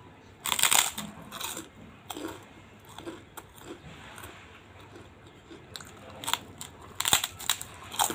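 Large crispy kerupuk cracker being bitten and chewed close to the microphone: sharp crunches, loudest about half a second in and again in a cluster near the end, with softer chewing crunches between.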